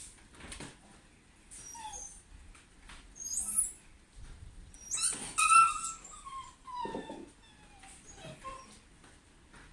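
Shiba Inu whining and whimpering: a series of high-pitched cries that slide down in pitch, the loudest about halfway through. It is a dog crying in distress at being left home alone.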